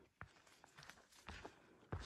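Faint footsteps of a hiker walking on a dirt forest trail: a few soft steps and scuffs, the firmest one near the end.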